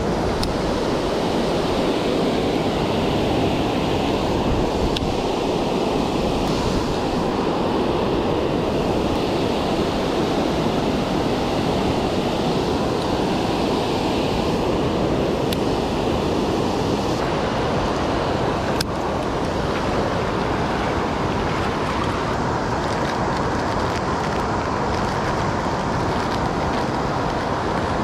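Water pouring over a low dam spillway: a steady rush of falling water.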